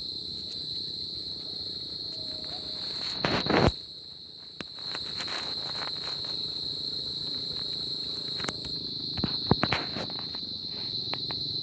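Crickets chirping in one continuous high trill. A loud burst of rustling or crackling comes about three seconds in, and a few sharper clicks come near the two-thirds mark.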